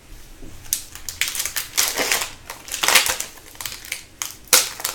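Foil wrapper of an Upper Deck hockey card pack crinkling and tearing as the pack is opened, in a run of irregular rustles, loudest about three seconds in and again near the end.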